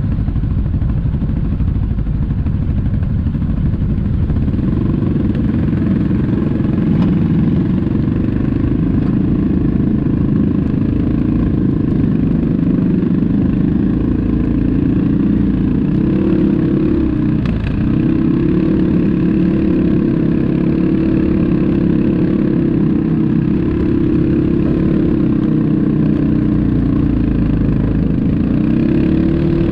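ATV engine running at steady throttle, its pitch holding level apart from a brief drop in revs about two-thirds of the way through.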